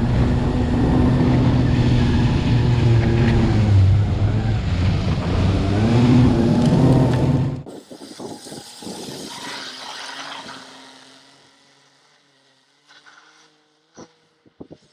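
Taiga Nomad electric snowmobile running under way, a loud steady drivetrain whine that swells slightly in pitch. About seven seconds in the sound cuts off abruptly to a much fainter whine that fades out as the sled moves away, followed by a few faint knocks.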